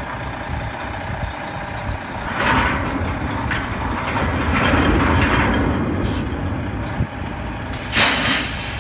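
Crane truck engine running steadily, with two bursts of hissing: one about two and a half seconds in and one near the end.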